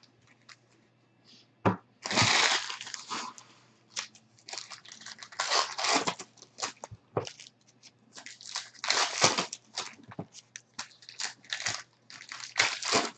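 Trading card pack wrappers crinkling and rustling as packs are handled and opened, in irregular bursts, the longest about two seconds in.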